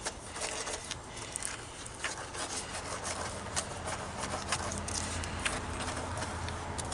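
Trowel working wet cement into a vertical wall patch: short scattered scrapes and taps of cement being pushed and packed, over a steady low hum.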